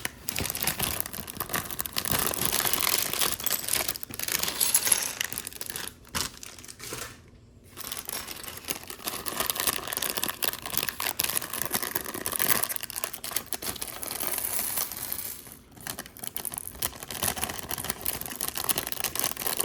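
Thin plastic Lego parts bags crinkling and being torn open, in a near-continuous stretch broken by a few short pauses.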